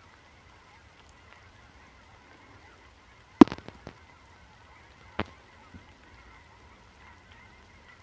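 A flock of geese in flight honking faintly in the distance. Two sharp taps stand out, the louder one about a third of the way in and another a couple of seconds later.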